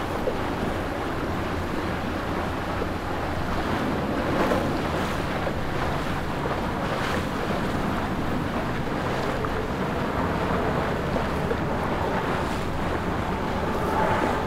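Steady wind buffeting the microphone over open water, with waves washing and a passing outboard-powered center-console boat under way adding to the rush.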